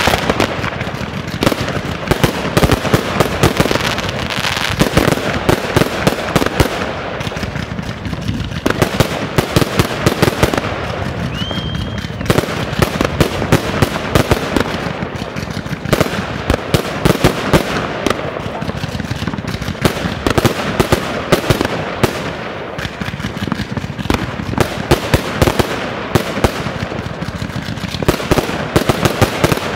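Aerial fireworks going off in a continuous barrage: repeated sharp bangs and dense crackling in clusters every few seconds, with one brief high whistle about twelve seconds in.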